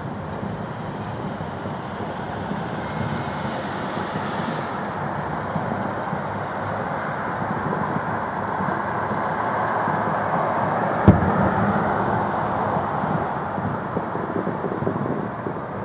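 Fireworks display: a steady wash of noise that swells gradually, with one sharp firework bang about eleven seconds in.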